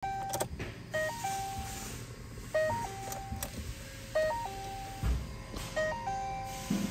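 2011 Ford Fiesta's dashboard warning chime, a short electronic jingle of a few stepped notes repeating about every one and a half seconds, four times, with a few sharp clicks of the key at the ignition. Near the end the key turns on and a steady electronic tone comes in.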